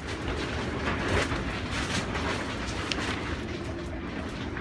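Paper pages of a printed manual rustling as they are handled and turned, with a few soft paper scrapes over a steady low rumble.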